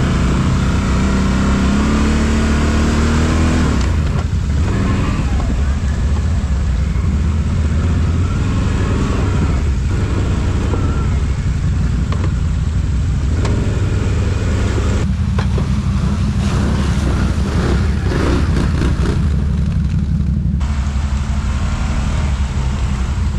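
ATV engine running under load. Its pitch rises over the first few seconds, then holds steady, with a run of knocks and rattles in the second half.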